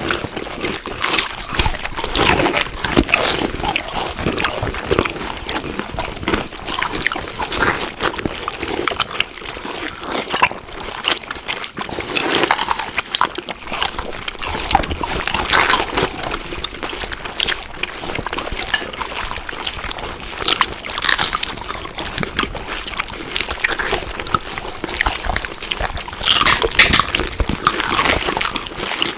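Close-up chewing and eating sounds: continuous mouth noises with many small rapid crackles and clicks, and a louder stretch near the end.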